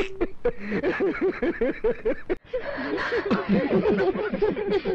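People laughing in quick repeated bursts: a man chuckling, then giggling after a brief break a little over two seconds in.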